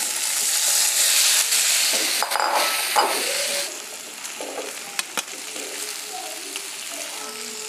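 Vegetables tipped into hot oil and fried spices in a non-stick wok: a loud sizzle for about the first three and a half seconds that then settles to a quieter frying hiss. A few sharp clinks of utensils cut through it in the middle.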